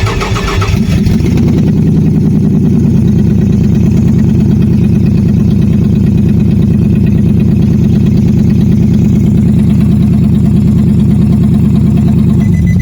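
Nissan Xterra engine cranking on the starter motor for about eleven seconds without catching, in a steady rhythm, starting about a second in and stopping near the end. It is the sign of a crank-no-start with no spark, still not cured by a substitute camshaft sensor.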